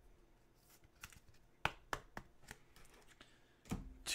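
Faint handling of trading cards in rigid clear plastic holders: several short, scattered clicks and taps as the holders are picked up and set down on a wooden table.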